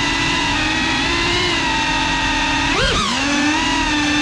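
Brushless motors and ducted propellers of a GEPRC CineLog35 cinewhoop drone whining in flight, the pitch wavering with the throttle and dipping then surging sharply about three seconds in.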